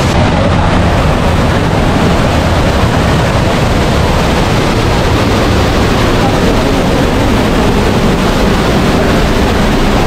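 Waterfall roaring close by: a loud, steady rush of falling water.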